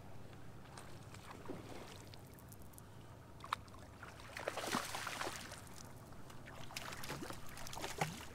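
A hooked bass splashing at the surface as it is reeled up to the side of a bass boat, with water slapping at the hull and a few sharp clicks and knocks. The splashing is loudest about four and a half seconds in, over a faint steady low hum.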